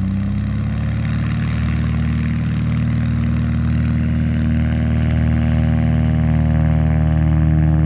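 Light tow plane's piston engine running steadily at high power for a glider tow, growing slightly louder toward the end.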